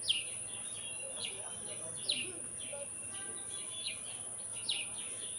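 Small songbirds chirping: short, sharply falling chirps, about one a second, over a steady high hiss.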